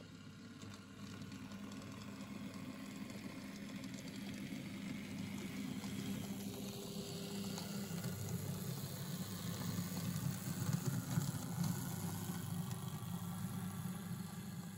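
Model railway train running past over the rails and points: the hum of the locomotive's small electric motor and the rumble of the wagon wheels, rising as the train approaches. It is loudest about ten to twelve seconds in, with a few sharp clicks there, then fades.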